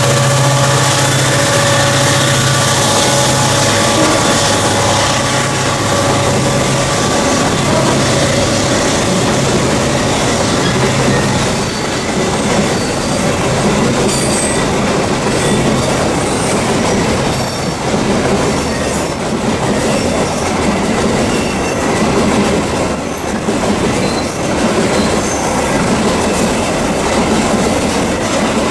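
Double-headed CC 205 diesel-electric locomotives running hard, their engines a steady low drone for about the first eleven seconds. Then the steel coal hopper wagons rolling past take over, with a clickety-clack of wheels on rail joints and a few brief high wheel squeals on the curve.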